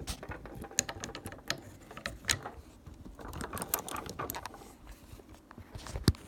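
Small metal rifle parts clicking and scraping irregularly as the hammer and trigger assembly of a Marlin 336 lever-action rifle is worked into the receiver to line up its holes, with a sharper click near the end.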